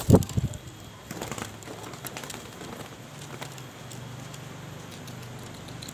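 Pigeon wings flapping close by as a pigeon is caught in the hand, then a few crackling handling rustles and a low, steady pulsing sound from about three seconds in.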